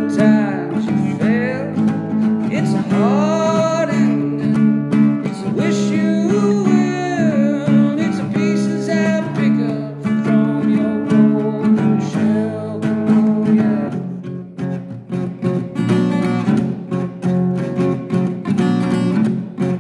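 Strummed acoustic guitar with a man singing over it. The voice drops out about two-thirds of the way through and the guitar carries on alone.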